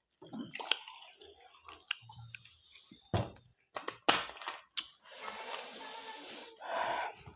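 Close-miked chewing of pork: wet mouth clicks and smacks, with a few sharper smacks around the middle. A steady hiss runs for about a second and a half near the end, followed by a short muffled sound.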